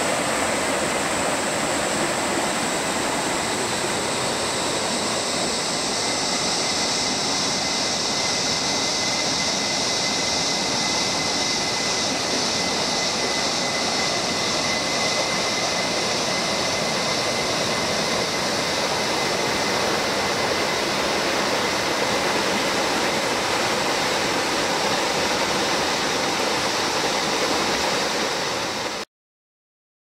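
Rapids on a rainforest river in flood, bank to bank after heavy rain: brown floodwater rushing and churning in a steady, loud rush. The sound cuts off suddenly about a second before the end.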